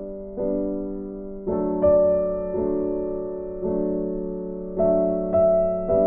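Background music: slow, gentle piano chords, each struck and left to fade, about one a second.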